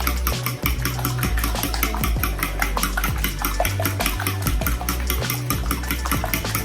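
Whisk beating a runny egg, flour and water batter in a bowl: quick, even strokes clinking against the bowl several times a second.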